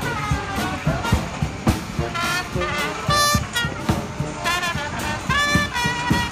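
Upbeat background music with a steady beat and held brass-like notes.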